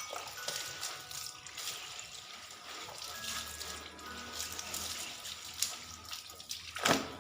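Water splashing and sloshing in a basin as a garment is rinsed and worked by hand, with a louder splash near the end.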